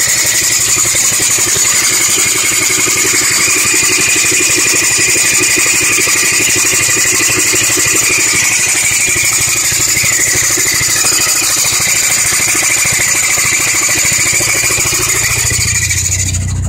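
B7 Audi A4 engine idling with a loud, steady metallic grinding and whine from the serpentine belt side of the engine, from a part the owner cannot identify.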